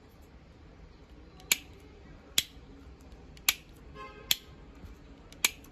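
A New Holland/Massey Ferguson tractor rocker switch flipped back and forth by hand, giving five sharp clicks about a second apart.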